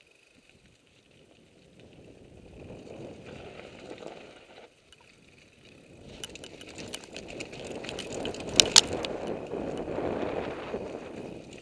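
Mountain bike rolling down a dirt trail: tyres crunching over dirt and the bike rattling. It grows louder and busier with clicks from about halfway through as it crosses rocks, with two sharp knocks close together about three-quarters of the way in.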